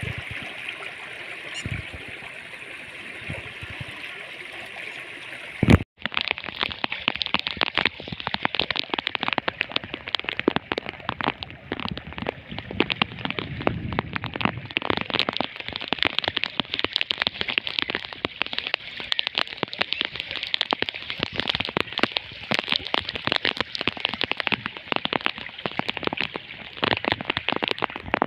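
Floodwater rushing and splashing through a breach in a gravel road, a dense, continuous crackling hiss. About six seconds in there is a sharp knock where the recording cuts, and after it the rushing is closer and louder.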